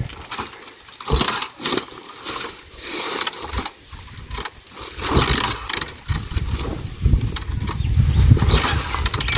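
Motorcycle being turned over in attempts to start it, with irregular mechanical knocks and a rougher stretch of low running noise in the second half; the engine does not catch and the electric starter will not fire.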